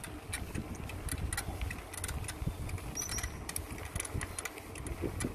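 Folding bike rolling along an asphalt lane, heard through the handlebar-mounted camera: a steady low rumble with irregular clicks and rattles from the bike. A brief high double chirp about three seconds in.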